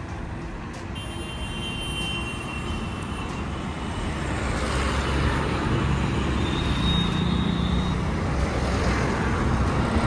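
Highway traffic passing close by, with a heavy truck going past, its rumble swelling from about four seconds in and staying loud.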